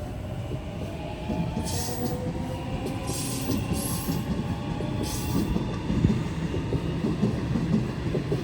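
Sydney Waratah electric train moving at the platform: low rumble of wheels on rail under a motor whine that rises in pitch and then levels off. Short hisses and squeals come through a few times.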